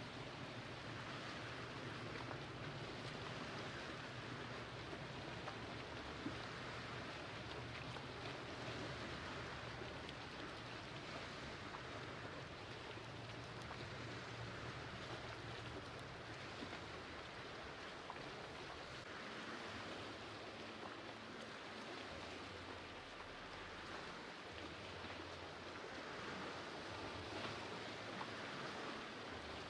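Small waves lapping gently against shoreline boulders: a soft, steady wash of water over a faint low rumble.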